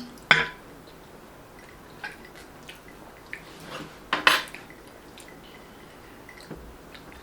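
Cutlery clinking and scraping against a plate while eating: a scatter of light taps, with two louder clinks, one just after the start and one about four seconds in.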